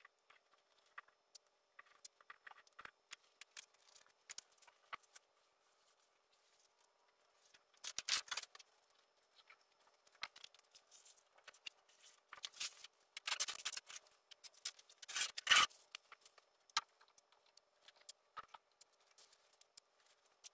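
Masking tape being pulled off the roll and torn, with masking paper rustling, in short scattered rasps and clicks; three clusters stand out as louder.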